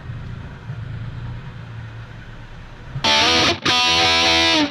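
A pickup truck's engine runs with a steady low rumble. About three seconds in, a loud distorted electric-guitar heavy metal riff cuts in abruptly and drowns it out.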